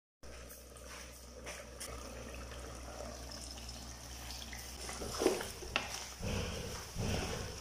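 Chicken simmering in its juices under a glass lid, crackling faintly over a low steady hum. From about five seconds in, the lid comes off and a spatula stirs and scrapes the chicken pieces around the nonstick pan, louder and uneven.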